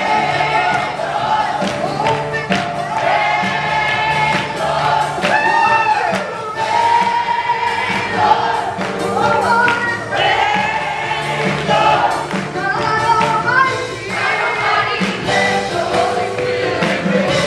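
Amplified gospel worship song: lead singers on microphones with a congregation singing along over held low accompaniment notes.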